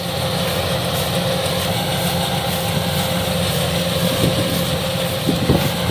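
Kubota DC-105X combine harvester running steadily while cutting rice, its diesel engine and threshing machinery making a constant drone with a steady hum.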